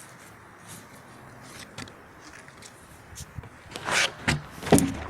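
Faint background hiss, then about a second before the end a few loud rustling scrapes and sharp knocks.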